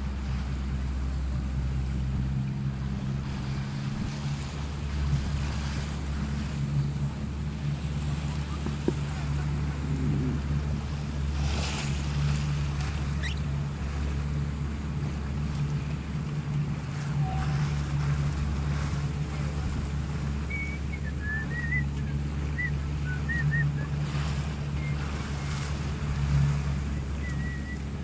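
A motorboat's engine running with a steady low hum, under wind on the microphone and choppy water splashing, with a few louder splashes. A few faint short squeaks sound near the end.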